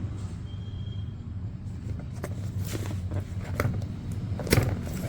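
Hands handling the box and packaging: scattered clicks and crackles, more frequent after about two seconds, with one louder click near the end, over a steady low hum.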